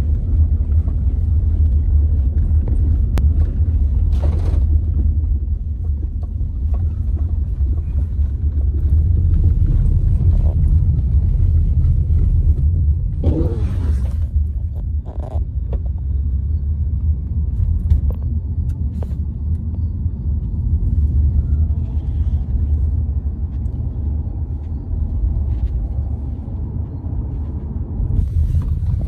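Steady low rumble of road and engine noise inside a moving car's cabin, with a few brief noises about 4 seconds in and again around 13 to 15 seconds.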